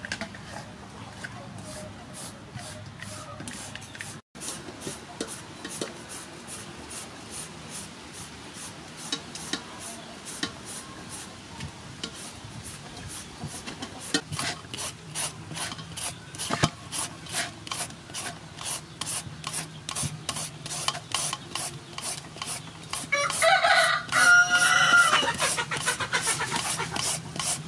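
Hand shredder rasping down a peeled green papaya in quick repeated strokes, the shreds falling into an aluminium basin. A rooster crows once near the end, louder than the shredding.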